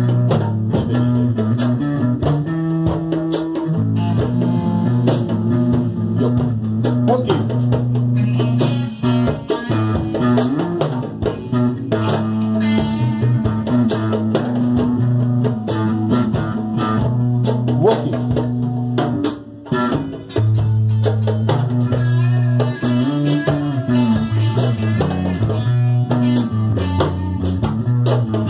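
Live instrumental jam: a guitar playing sustained low notes and chords over djembe hand drumming, with steady sharp percussive strokes.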